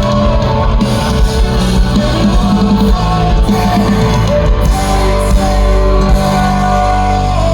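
Live folk-punk band playing loudly with guitars and drums, with some singing. About halfway through, the chords become steady and held.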